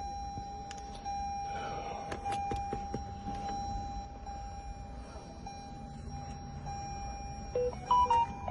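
Scattered light clicks of handling over a steady faint electronic tone, with a few short electronic beeps near the end.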